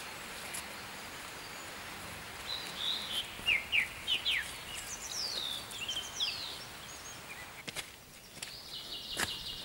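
Small songbirds calling in a run of quick high chirps and falling whistles over a steady outdoor hiss, with a few footsteps on the path near the end.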